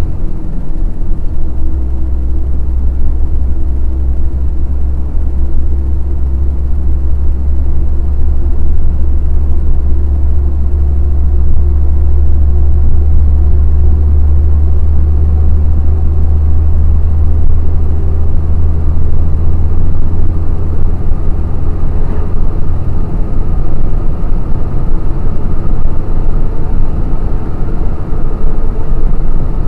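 Heavy truck's diesel engine and road noise heard from inside the cab while driving at highway speed: a steady deep rumble, with an engine note that slowly rises in pitch.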